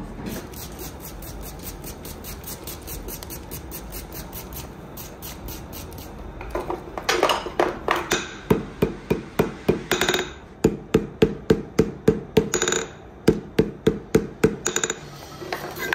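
Hand hammer striking red-hot steel wire rope on an anvil: after a few seconds of low steady background noise, a quick run of blows starts about six or seven seconds in, about three strikes a second, ringing between blows.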